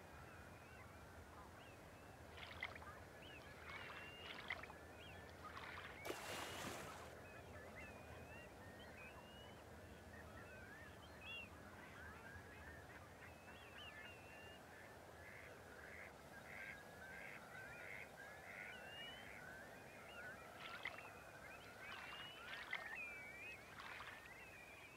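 Faint chorus of many waterbirds calling at once: overlapping short honking and chattering calls, with louder clusters in the first few seconds and again near the end. There is a brief rushing noise about six seconds in.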